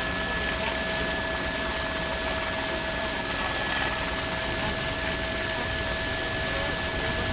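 Steady helicopter cabin noise, an even rushing hum with two constant high whining tones held throughout.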